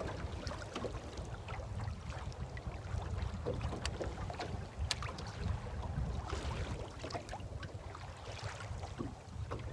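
Wind rumbling on the microphone, with a couple of faint sharp ticks about four and five seconds in.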